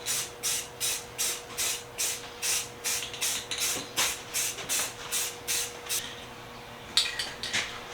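Aerosol can of etching primer spraying in short, quick hissing bursts, about three a second, with a pause of about a second near the end before a few more bursts.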